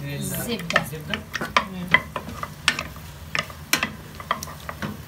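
Wooden spoon stirring in a ceramic-coated pot, knocking and scraping against the sides in repeated irregular taps, while a block of butter melts in it with a light sizzle.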